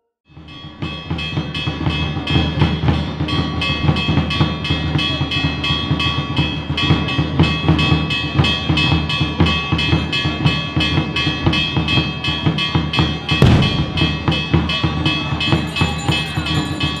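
Band music: long held chords with a steady quick drum beat, about four or five strokes a second, starting just after a moment of silence.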